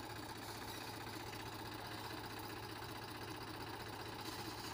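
Mahindra tractor's direct-injection diesel engine running steadily at low revs, hauling a fully loaded trolley at crawling speed.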